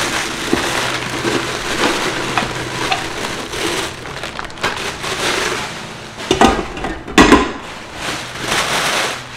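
Clear plastic packaging bags crinkling and rustling as they are pulled off a stainless steel cooker pot, with two louder thumps about six and seven seconds in.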